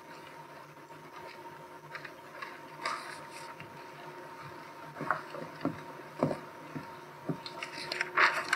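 A group sitting down on folding chairs: scattered knocks, clicks and rustling, growing busier about halfway through, over a steady hum.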